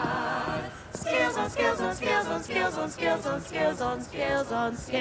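A choir singing a cappella: a held chord, then, from about a second in, a rhythmic run of short, separate sung notes.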